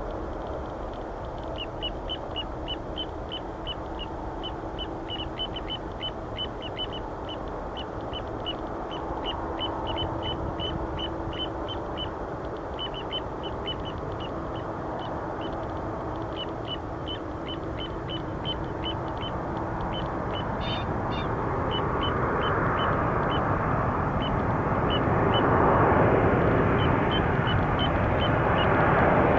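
Boeing 737-800 airliner on final approach, the rumble of its CFM56 turbofans growing steadily louder over the last third. Throughout, a rapid run of short, high chirps repeats a few times a second.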